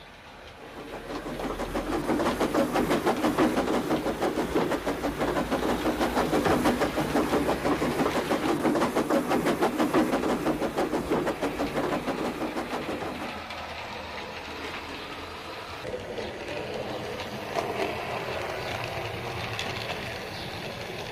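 00 gauge model train running on the layout's track, its wheels making a rapid, even clicking. It grows loud about a second in and falls away after about thirteen seconds as it moves off.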